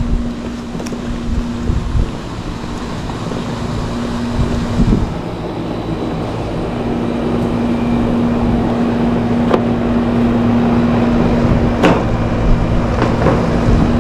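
Steady electric hum of an outdoor air-conditioning unit, over a low rumble, with a few sharp clicks and knocks from handling the unit's panels; the loudest click comes about twelve seconds in.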